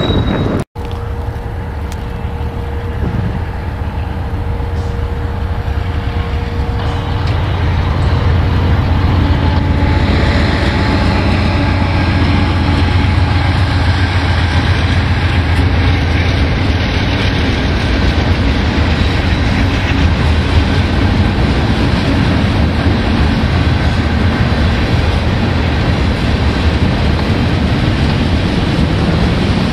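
Freight train passing close by. BNSF diesel locomotives run past with a heavy low engine rumble that grows louder about ten seconds in, followed by tank cars rolling by on the rails.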